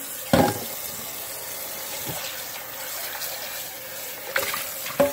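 Kitchen faucet running water into a stainless steel dog bowl in a steel sink, a steady rush, as the bowl is rinsed out. A loud metallic clank comes about a third of a second in, and two smaller knocks near the end, as the bowl bumps the sink.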